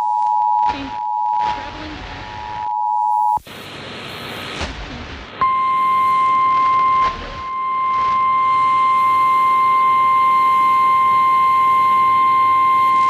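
Emergency Alert System two-tone attention signal on a fading, crackling long-distance FM signal. It cuts off about three seconds in, and after a couple of seconds of static and crosstalk a single steady alarm tone begins and holds: the National Weather Service 1050 Hz warning tone that opens a severe thunderstorm warning.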